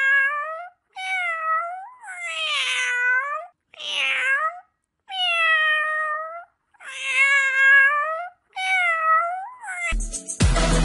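A cat meowing repeatedly: about seven long, drawn-out meows in a row, each around a second, with short pauses between them. Electronic dance music starts near the end.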